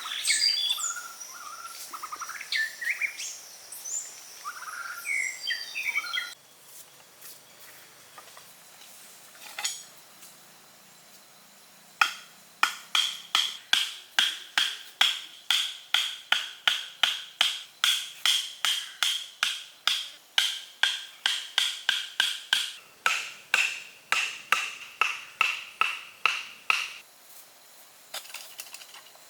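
High chirping calls for the first few seconds, then, after a pause, a long even run of sharp knocks, about two a second, each with a brief ringing note, stopping suddenly near the end.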